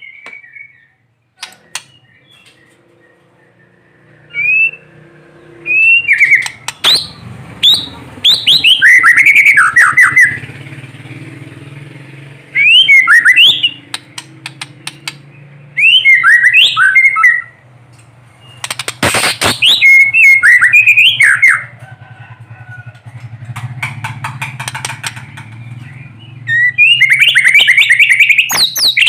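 White-rumped shama singing in loud bursts of rapid, repeated whistled notes that sweep steeply downward, the fast 'tembakan' volleys used to provoke other shamas, in several phrases a few seconds apart. A low steady hum runs underneath, with a few sharp clicks.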